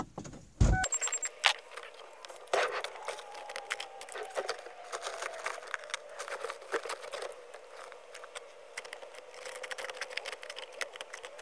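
A car door opening about a second in, then a long run of clicking and clattering as loose tools and belongings in the back seat are rummaged through in search of a pair of grips.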